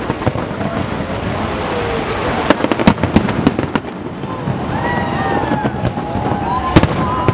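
Aerial fireworks shells bursting: a quick cluster of sharp bangs about two and a half seconds in and one more sharp bang near the end, over a steady hiss.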